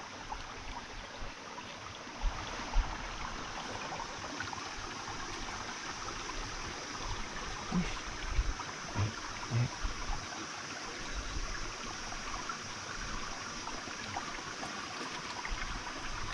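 Small stream running steadily, with a few short dull thumps about two seconds in and again around eight to ten seconds in.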